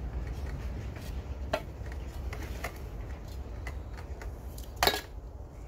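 Metal soil scoop clinking and scraping against a rock while peat is packed into its crevices, a few scattered clicks with one louder knock near the end, over a steady low hum.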